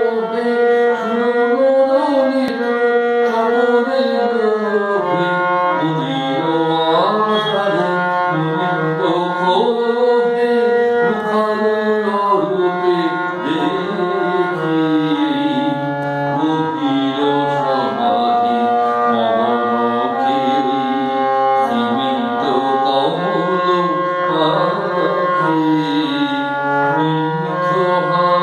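Indian hand-pumped harmonium playing a melody of held reed notes and chords, with a man's voice singing along and sliding between notes.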